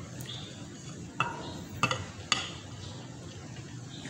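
Light clicks and taps of a plate and utensils being handled at a table, with three sharp clicks in the middle.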